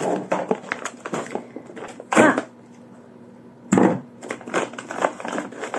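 Tissue paper rustling and crinkling as a small wrapped gift is handled, with two louder crinkles about two seconds in and near four seconds.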